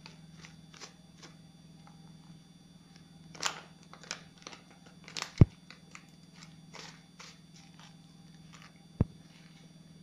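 Light crinkling and rustling of a foil-lined plastic spice packet as a spoon is dipped into it, with a sharp knock about five seconds in and another near the end, over a steady low hum.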